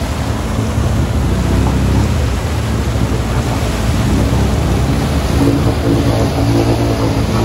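ATV engine running hard while its spinning tyres churn through deep mud and throw up a spray of it: a loud, dense rumble of engine and splattering mud. The engine note stands out more clearly about five seconds in.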